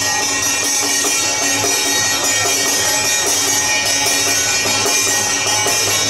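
Loud, steady temple procession music: shrill reed pipes holding tones over drums and clashing percussion.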